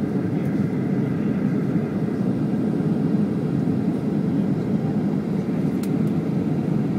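Steady cabin roar inside a Boeing 737-800 in flight, a low, even rush of engine and airflow noise, with a faint click near the end.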